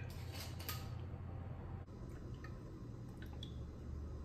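Frozen gin poured in a thin stream over ice cubes in a tall glass: a faint liquid trickle with a few small clicks from the ice.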